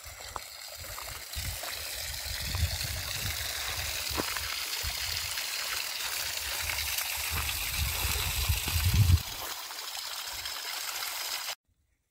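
Spring water splashing steadily from a rock spout into a shallow natural Kneipp pool, growing louder over the first couple of seconds, with a low rumble on the microphone coming and going until about nine seconds in. The sound cuts off abruptly near the end.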